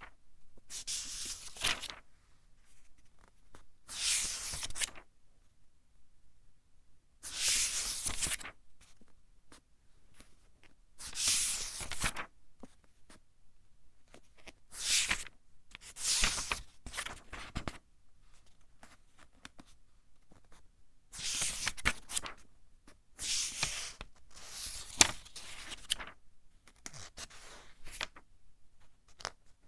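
Pages of a thin-paper book being turned one at a time by hand: about a dozen dry paper swishes at uneven intervals of a couple of seconds, some ending in a crisp snap as the page falls over.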